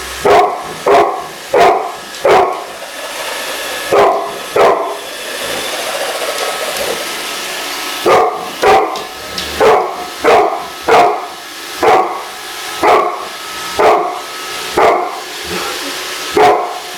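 A dog barking repeatedly in quick runs, with a pause of a few seconds in the middle, over the steady whir of a Roomba robot vacuum running.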